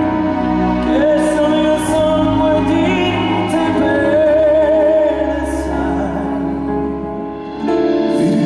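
A male operatic voice from a classical-crossover vocal group singing sustained, vibrato-laden phrases over live accompaniment. Near the end the accompaniment swells with a fuller chord.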